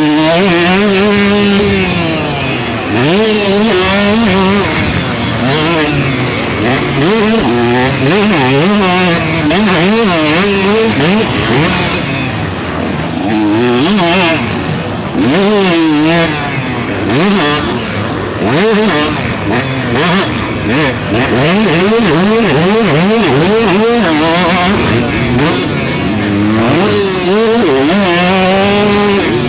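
125cc two-stroke motocross bike engine revving hard and falling back again and again as it is ridden, its pitch sweeping up and down, with several short throttle-off dips.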